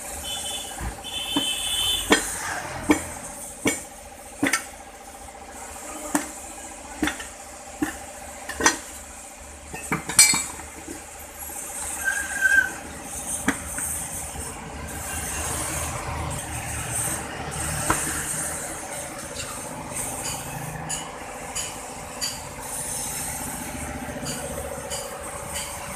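Sharp metal clinks and knocks as a steel tyre lever works an old tyre off a steel wheel rim, about one a second at first and sparser later on, over a steady background hum.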